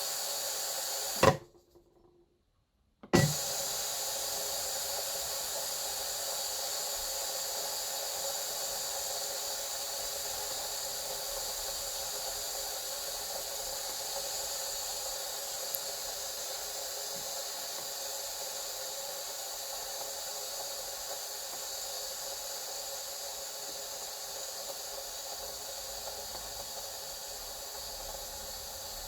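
Steam jetting steadily from an Instant Pot pressure cooker's quick-release valve, a continuous hiss that slowly weakens as the pressure drops. A little over a second in it cuts out for about two seconds, with a click where it stops and another where it starts again.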